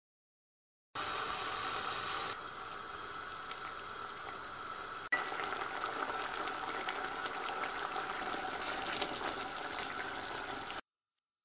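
Thick mixture of dried fruit, butter, sugar and juice bubbling at a steady simmer in a stainless steel saucepan. The sound starts about a second in, jumps abruptly twice where the footage is cut, and stops shortly before the end.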